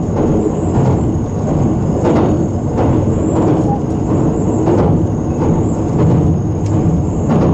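783-series electric train running at speed, heard from inside the front car: a steady rumble of wheels on rail with a clack about every second as the wheels cross rail joints.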